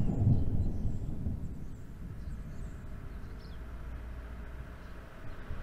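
Rolling thunder rumbling, loudest at the start and dying away over the first couple of seconds.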